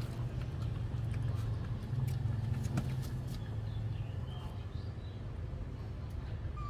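A puppy lapping milk from a steel bowl, heard as soft irregular clicks, over a steady low motor hum.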